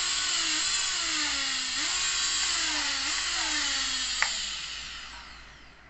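Brushless motors of an FPV quadcopter spinning with no propellers fitted, a whine whose pitch slides up and down several times as the throttle changes. There is a sharp click about four seconds in, and the motors then wind down and fade out near the end.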